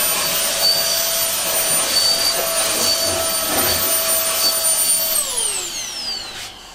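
Cordless handheld vacuum cleaner running with a steady high whine. About five seconds in it is switched off, and its motor winds down in falling pitch.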